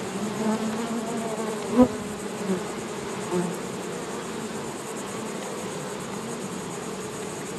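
Many honey bees buzzing steadily around an open hive. A short knock about two seconds in, with a couple of softer ones after, as wooden frames are handled and pushed into the hive box.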